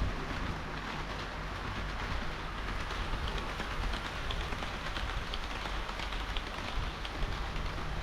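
HO-scale model train of KiHa 40 and KiHa 58 series diesel railcars running along the layout's track: a steady rolling rattle of wheels on rail with small clicks, over a low steady hum.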